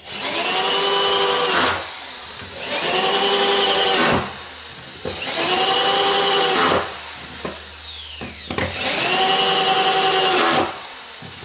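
Diold electric drill-driver driving self-tapping screws through wooden floorboards into the joists, four times in a row. Each screw is a burst of steady motor whine about a second and a half long, rising as the motor spins up and dropping off at the end. The screws pull the loose boards down to cure the floor's creaking.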